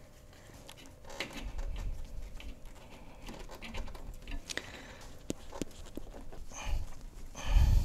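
Rubber transmission cooler hose, lubricated with transmission fluid, being worked by hand onto the cooler's fitting: faint rubbing and squeaking with scattered small clicks, and a low thump near the end as the hose goes as far as it will.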